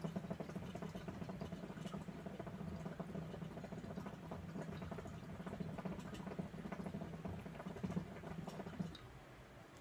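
Hookah water bubbling steadily as a long draw is pulled through the hose, a dense run of small pops that lasts about nine seconds and stops near the end.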